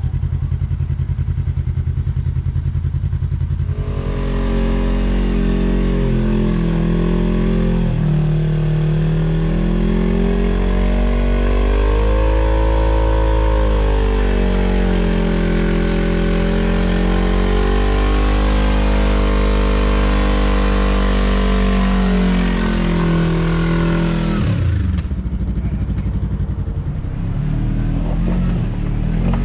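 Side-by-side UTV engine running low, then from about four seconds in revving hard for some twenty seconds, its pitch rising and falling. Near the end it drops back to a lower running sound.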